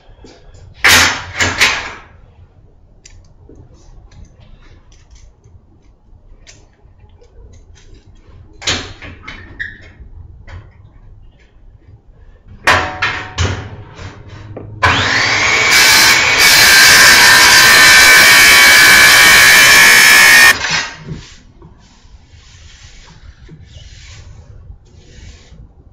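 Metal clanks and knocks as clamps and a straightedge are set on a quarter-inch steel plate. Then an angle grinder with a cut-off wheel spins up with a rising whine and runs loudly for about five seconds, cutting the steel plate, and stops.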